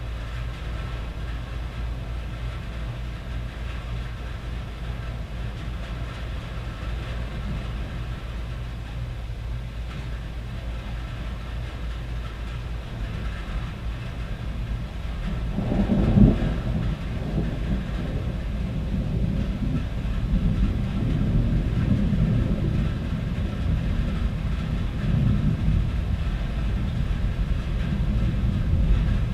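Steady rain on a tin roof over a low rumble. About halfway through, thunder breaks in with one loud peak and keeps rolling, louder than before.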